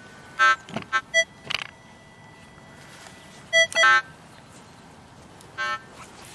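Minelab CTX 3030 metal detector sounding short electronic target beeps of changing pitch as the coil is swept back and forth over a buried target. There is a quick run of beeps in the first two seconds, another pair about three and a half seconds in, and one more near the end. It is a split response that the detectorist reads as two objects side by side; the target proves to be a single unusually shaped brass horse decoration.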